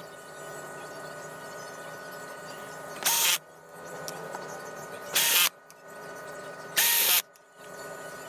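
Electric screwdriver driving screws, run in three short bursts a couple of seconds apart, each starting with a quick rising motor whine.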